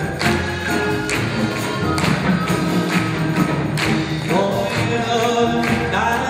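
A Korean traditional (gugak) orchestra playing, with strings, winds and a beat of percussion strokes. A male folk singer's voice comes in over it about four seconds in.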